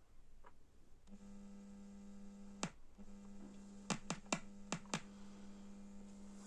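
BD424 amplifier humming: a steady buzzing hum with many overtones comes in about a second in, with six sharp clicks over it. The hum drops out briefly right after the first click.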